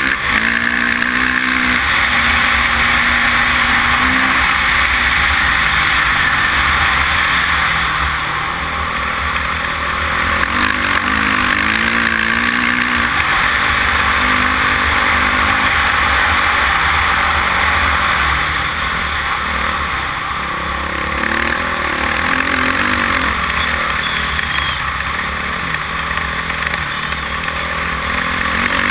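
Honda dirt bike engine running under throttle, its note rising and falling with gear changes and throttle, easing off briefly twice. Heavy wind rushes over the microphone throughout.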